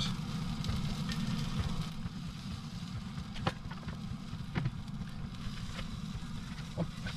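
A steady low rumble with a few light clicks of a metal spatula against a toastie pan, about a second apart, in the second half.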